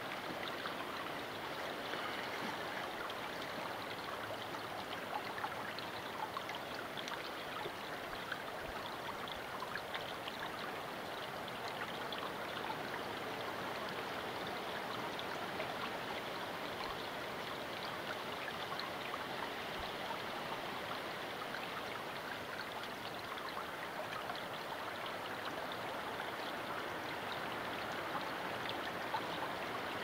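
Small creek running steadily, an even wash of flowing, trickling water.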